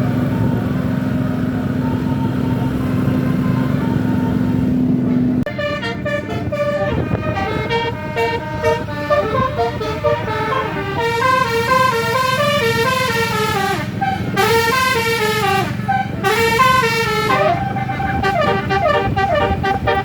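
Indonesian bus telolet horn playing melodic tunes, several horn tones stepping up and down together in quick repeated phrases. Before that, for about the first five seconds, there is a steady low drone.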